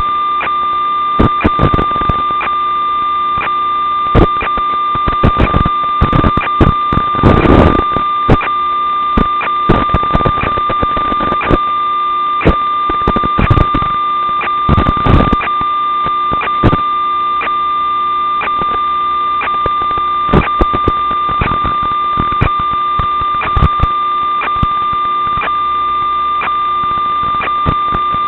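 Steady electronic buzz with a high whine and irregular crackling static, typical of the audio channel of an analog FPV video link recorded from the goggles or receiver. The crackles come thickest in two stretches: from about six to eight seconds in, and from ten to fifteen seconds in.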